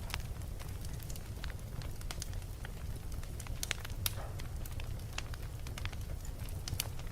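Wood fire burning in a fireplace: a steady low rumble of flame with irregular sharp crackles and pops, the loudest about four seconds in and again near the end.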